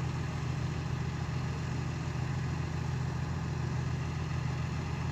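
Komatsu PC160LC excavator's diesel engine idling steadily.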